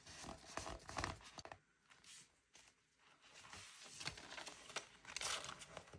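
Soft rustling and crinkling of paper banknotes and a tissue-paper envelope as cash is pulled out and handled, with small clicks, a brief lull about two seconds in, and busier rustling in the second half.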